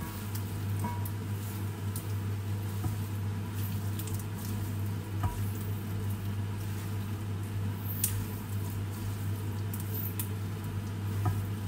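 Sliced pork coated in soy and oyster sauce being stirred and turned in a nonstick frying pan with a wooden spatula and tongs: soft wet squishing and scraping, with a few light clicks of the utensils on the pan, over a steady low hum.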